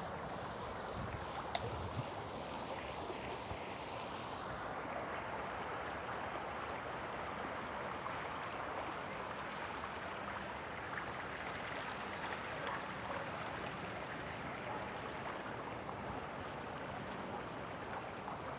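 Creek water flowing: a steady, even rushing that grows fuller a few seconds in.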